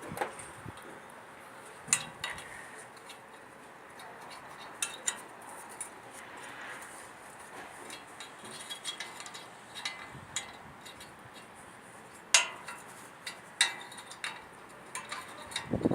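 Scattered metallic clinks and taps of a bolt and hand tools against the steel auger parts as the bolt is fitted and screwed in, a dozen or so sharp knocks at uneven intervals.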